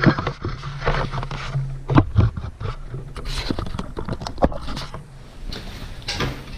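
Rustling and scraping of a Buffalo Tecmax shirt, a Pertex nylon shell with an acrylic pile lining, being pulled on over the head close to the microphone. Irregular sharp knocks and clicks of handling come through it, the loudest about two seconds in.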